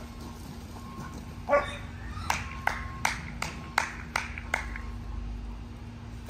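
A dog barking: one loud bark, then a quick run of about seven sharp barks, roughly three a second.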